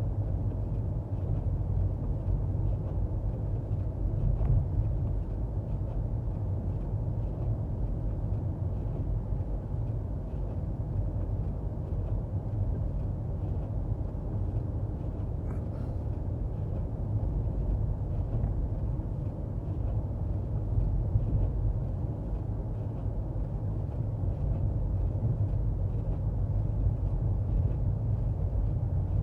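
Steady low rumble of road and tyre noise inside the cabin of a moving front-wheel-drive Toyota Prius.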